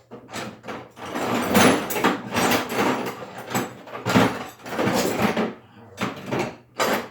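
Rummaging through a Craftsman toolbox: tools and parts clattering and knocking together in quick, irregular bursts.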